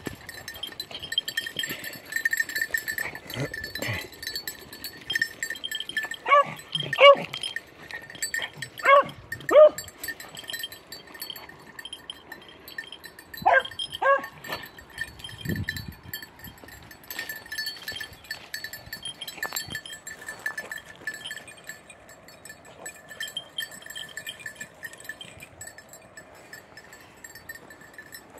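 Beagles giving tongue while trailing a hare's scent: short, high yelps, mostly in pairs a few seconds apart, loudest in the first half.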